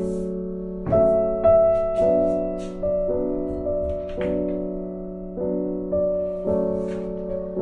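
Background piano music: slow chords and notes struck about once a second and left to ring.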